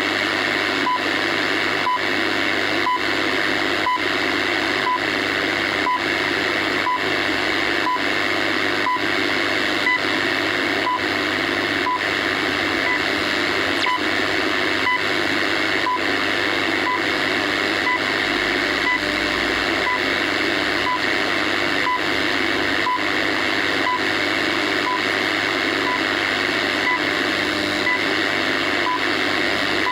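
Shortwave radio receiving a time-signal station on 15000 kHz, which the uploader takes for the Colorado station: a short tick once a second over steady static hiss.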